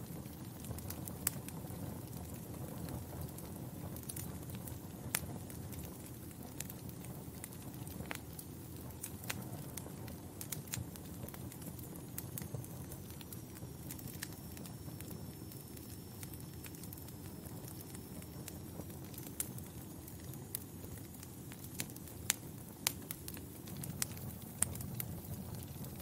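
Log fire in a fireplace crackling: a steady low rumble of flames with irregular sharp pops and snaps.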